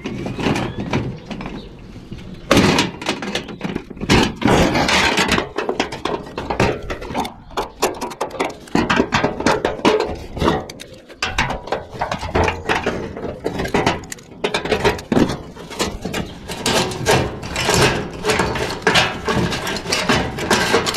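A hand tool working a nut loose to get a junction box off a walk-in cooler evaporator's sheet-aluminum housing: irregular runs of quick metallic clicks and scrapes, with the thin aluminum panel rattling and knocking.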